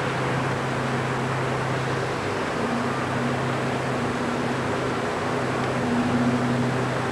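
Distant Class 37 diesel locomotive's English Electric V12 engine running as it approaches, a steady low hum under a constant rushing hiss.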